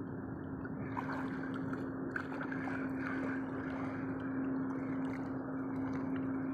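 Steady wash of water noise with a constant low hum underneath. Light splashes and clicks come in about a second in and die down after a few seconds.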